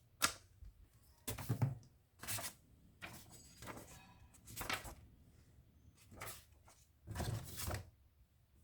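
Packaging being handled during an unboxing: a scattered series of short rustles and knocks, two of them with a dull thud, about a second and a half in and near the end.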